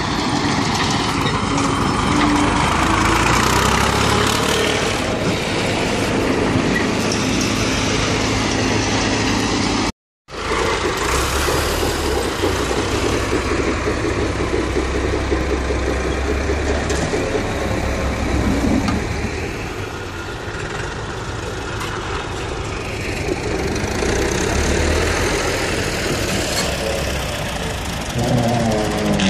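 Diesel farm tractor engine running under load, steady and loud. The sound cuts out briefly about ten seconds in. Near the end the engine revs up.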